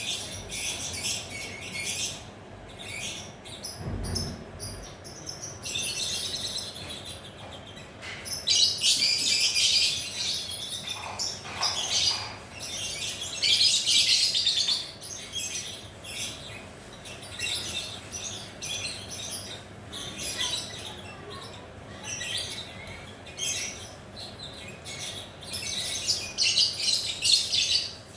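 Lovebird chattering in rapid, high-pitched trills, with several louder stretches of continuous 'ngekek' chatter lasting a second or two each. A brief low thump about four seconds in.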